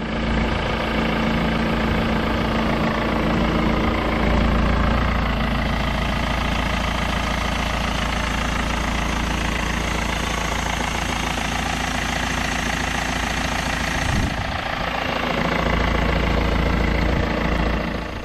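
BMW M47 two-litre four-cylinder diesel engine of an E60 520d idling steadily.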